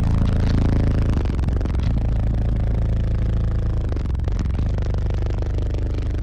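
Car audio subwoofers, six 15-inch B2 Rampage woofers in a ported enclosure, playing bass-heavy music very loud: deep held bass notes that shift pitch a few times dominate, with rattling over them.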